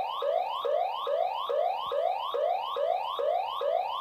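Electronic siren from a battery-powered Hess toy ambulance, played through its small speaker: a fast, repeating yelp in which each tone climbs and then drops back, about two to three sweeps a second.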